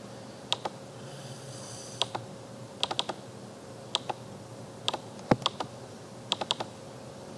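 Clicking at a computer: about a dozen short, sharp clicks, many in quick pairs or small clusters, over a faint steady hum.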